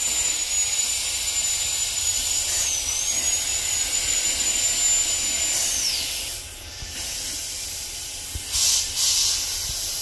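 High-speed dental drill whining steadily as it cuts out a deep cavity, its pitch dipping briefly about three seconds in and falling away as it winds down about six seconds in, over a constant hiss of suction and water spray. Near the end come two short, loud hissing bursts.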